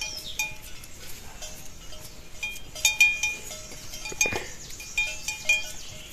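Livestock bells clinking and ringing irregularly, as from animals moving about with bells on their necks.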